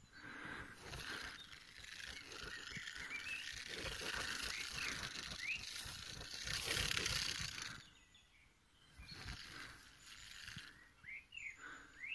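Injured, frightened crested porcupine rattling its hollow quills, a dry hiss-like rattle that swells to its loudest about seven seconds in and dies away about a second later. This is its warning display to scare off predators. Birds chirp briefly over it.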